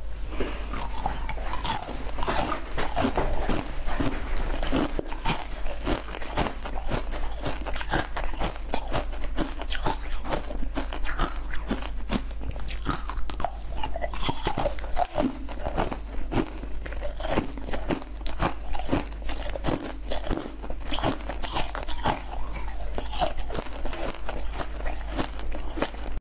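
Close-miked mouth sounds of biting, sucking and chewing colourful spiral lollipops: a dense, irregular stream of crunches and sharp clicks, over a faint steady low hum.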